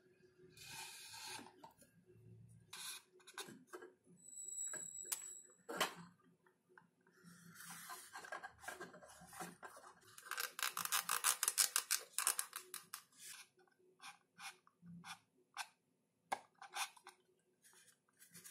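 Popsicle-stick wooden parts being handled and fitted together: light clicks, knocks and rubbing of wood on wood, with a brief thin squeak about four seconds in and a quick run of rapid clicks around ten seconds in as the skewer axle is worked into the house.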